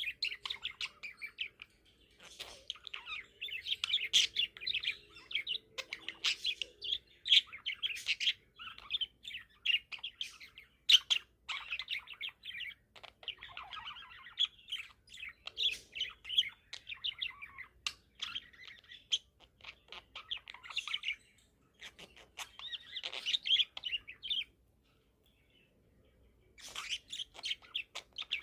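A young budgie (budgerigar, about four months old) chirping continuously in a rapid chatter of short high chirps, with one pause of about two seconds near the end before it starts again.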